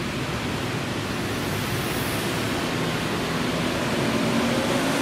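Jet engines of a taxiing airliner: a steady rushing noise with a faint low hum underneath.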